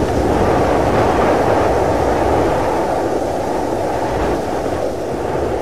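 A steady, muffled rumbling roar, like a low-passed whoosh, with no music or speech.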